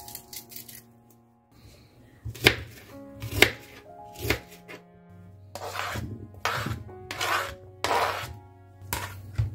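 A knife cutting nectarine on a plastic cutting board: three sharp strokes against the board, then four longer scrapes as the cut pieces are pushed off the board into a bowl, over background music.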